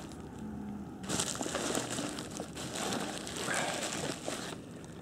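Foam packing peanuts and bubble wrap rustling and crinkling as hands dig through them, a dense crackle of small clicks that starts about a second in and fades out shortly before the end.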